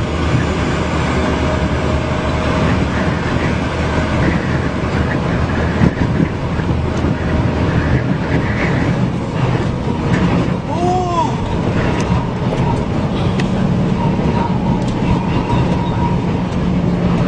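Steady road and engine noise of a moving vehicle picked up by a dashcam, with wind noise. About halfway through, a short tone rises and falls once.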